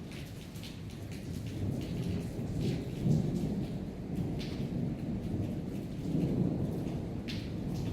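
Rolling thunder rumbling over steady rain, swelling about three seconds in and again near six seconds, with scattered raindrops ticking close by.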